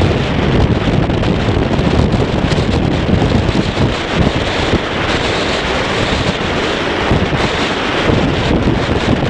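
Wind buffeting the microphone: a loud, uneven rushing noise, heaviest in the low end.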